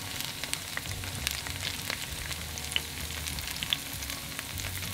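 Raw peeled potato pieces frying in hot vegetable oil in a stainless steel frying pan over a high heat: a steady sizzle with scattered sharp crackles and pops.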